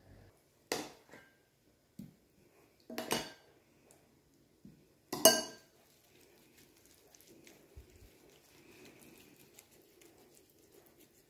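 A few sharp clinks of cutlery and dishes, the loudest about five seconds in, followed by faint soft rubbing as a gloved hand spreads a wet seasoning paste over raw duck skin.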